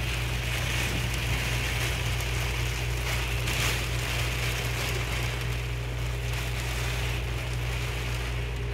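Squall rain falling steadily on a boat's cabin window and deck, over a steady low rumble, briefly louder about three and a half seconds in.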